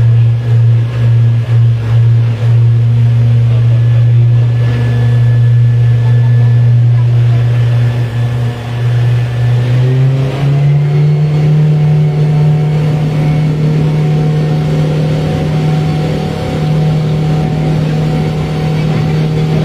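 Suzuki 100 hp outboard motor running under way with a steady engine note. About halfway through, the pitch rises to a higher steady note as the throttle is opened.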